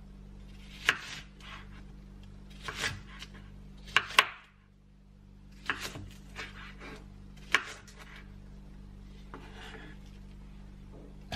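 Kitchen knife chopping an onion on a wooden cutting board: sharp, irregular knocks of the blade hitting the board, about six strong ones with softer cuts and scrapes between, over a low steady hum.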